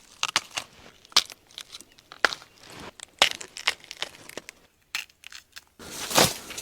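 Dry plant stalks and leaves crackling and snapping in undergrowth: irregular sharp snaps, several a second, growing louder and denser near the end.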